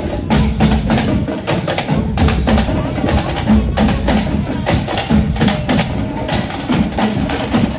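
Marching band percussion playing: drums with rapid, sharp wood-block-like strikes, several a second, in a continuous beat.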